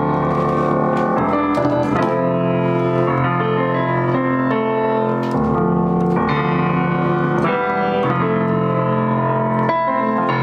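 Keyboard music with a piano sound: chords held under melody notes, at a steady level throughout.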